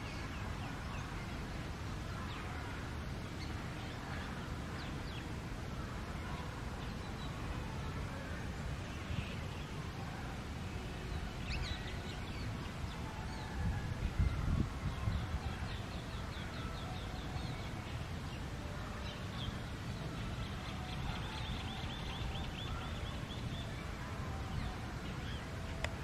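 Birds calling in a garden over a steady low rumble: scattered short chirps, and twice in the second half a fast trilling call of about ten notes a second. A low thump comes about halfway through.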